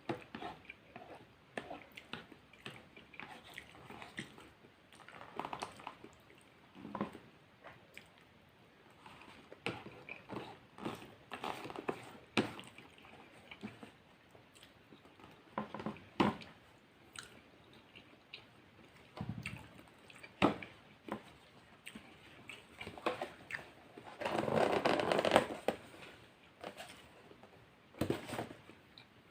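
Close-miked chewing and mouth sounds of a person eating a McDonald's spaghetti platter: irregular wet smacks and small clicks. One louder, noisier stretch lasts about two seconds near the end.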